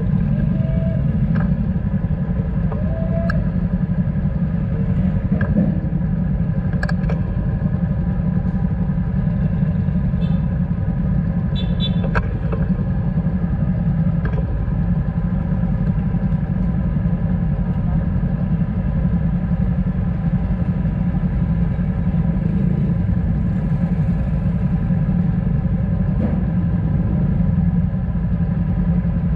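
Motorcycle engines idling in slow, stop-and-go traffic: a steady low rumble with a constant drone, and a few faint clicks scattered through it.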